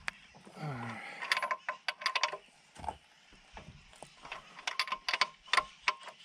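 Ratchet wrench clicking in two quick runs of strokes while a bolt is tightened. A short falling squeak comes just before the first run.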